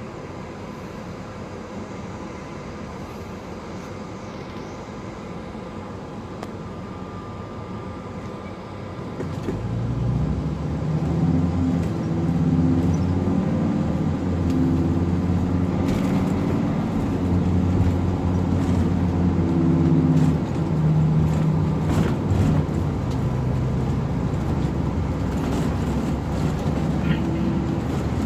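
A Ford shuttle bus's engine idles, heard from inside the cabin. About nine seconds in, the bus pulls away and accelerates, and the engine grows louder and rises and falls in pitch, with road noise.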